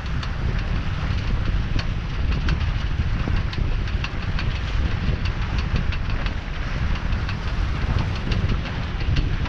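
Wind buffeting the microphone in a steady low rumble, over water rushing along the hull of a small sailboat under way. Scattered light ticks and splashes run through it.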